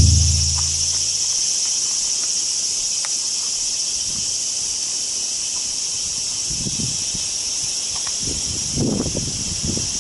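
Steady, high-pitched chorus of summer insects, an unbroken hiss. A few soft low thumps come in near the end.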